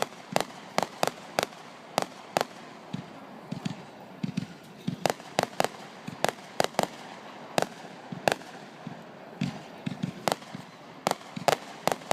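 Fireworks going off: a rapid, irregular string of sharp bangs, often two or three a second, with a short lull a few seconds in.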